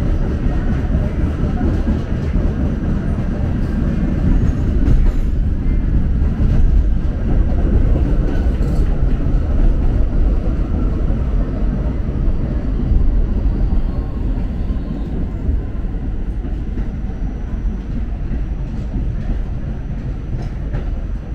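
New York City subway N train car running along the track, a steady loud rumble of wheels on rail heard from inside the car, with a few faint clicks. It eases off a little over the last third.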